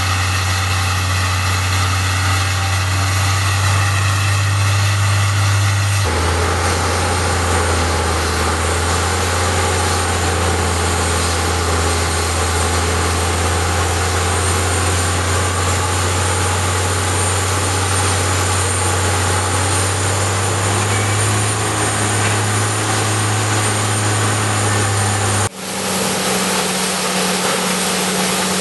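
Heavy diesel engine of a Peterson 5710C horizontal wood grinder running steadily, a deep constant drone with a hiss of chips above it. The drone changes abruptly about six seconds in and dips for a moment near the end.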